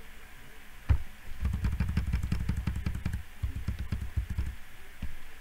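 Handling noise from the camera being moved in close: a sharp knock about a second in, then a few seconds of low rumbling with rapid clicking and scraping, and a smaller knock near the end.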